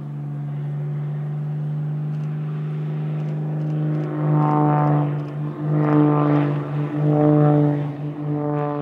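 Extra 300L aerobatic plane's six-cylinder Lycoming engine and propeller running at high power overhead, a steady drone. It grows louder about halfway through and then swells and fades several times as the plane manoeuvres.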